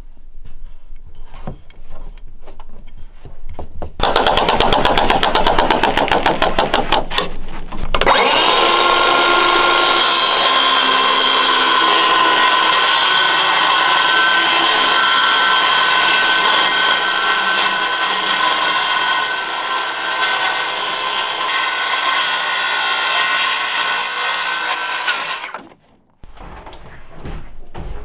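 DeWalt cordless circular saw cutting a grooved ceiling panel. A loud, fast rattle lasts about four seconds, then the saw runs steadily through the cut for about seventeen seconds with a high whine, and stops suddenly near the end.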